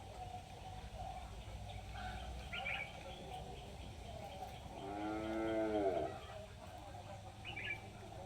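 A single drawn-out animal call, about a second long, rising then falling in pitch, about five seconds in. Short high chirps come twice, once before it and once near the end.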